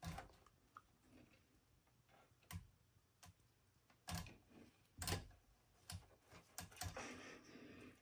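Black-throated monitor lizard's claws clicking and scraping on a wooden ramp and ledge as it climbs: faint, irregular taps, with a short scrape near the end.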